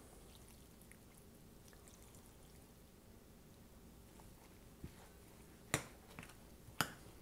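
Chicken broth poured softly from a glass jug onto crumbled cornbread dressing in a glass bowl while a big metal spoon stirs the wet mix, with a few sharp clinks near the end.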